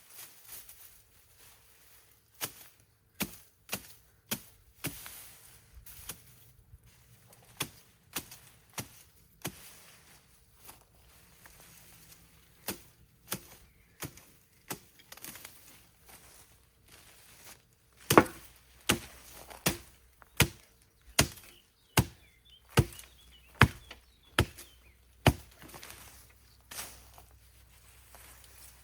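A hand-held blade chopping into wood: scattered single strikes at first, then a steady run of about a dozen hard chops, roughly three every two seconds, over the second half.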